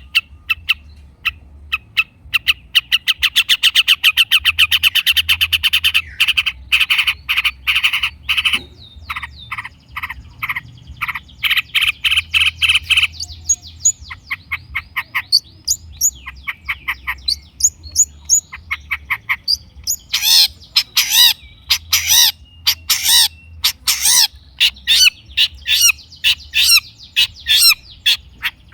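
Long-tailed shrike (cendet) singing a fast, varied, chattering song: a rapid even trill lasting about three seconds, then runs of sharp repeated notes and harsh calls.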